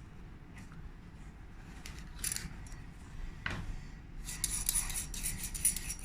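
Sofirn Q8 flashlight's metal head being twisted open on its threads: scratchy metal-on-metal rasping with small clicks, denser from about two-thirds of the way in.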